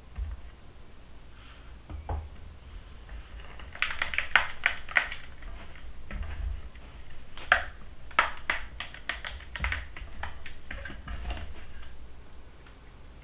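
Silicone spatula stirring and scraping a thick chocolate mixture in a glass bowl, tapping and clicking against the glass in quick irregular runs, most busily in the middle and later part. A few dull knocks come in between, as the bowl shifts on the counter.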